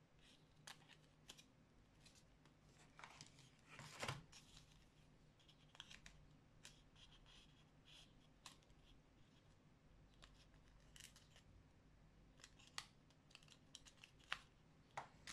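Faint scattered clicks and light rustling of small art supplies being handled by hand, with one louder click about four seconds in.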